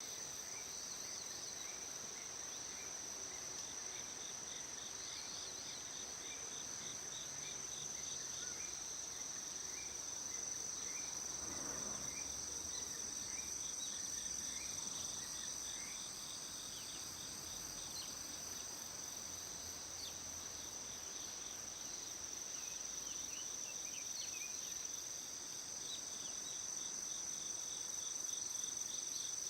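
Several crickets singing: a continuous high trill with evenly repeated chirps layered over it.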